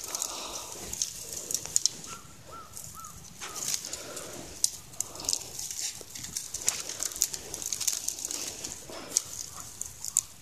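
Dry dead grass and twigs rustling and crackling as a dog's paws and a person's steps push through brush, with many small sharp snaps of stems.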